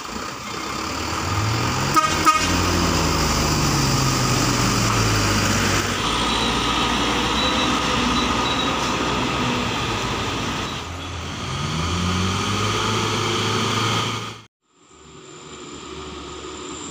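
Diesel truck engines labouring up a steep climb, their pitch rising and falling as they rev, with two short horn toots about two seconds in. Near the end the sound drops to a quieter, more distant engine.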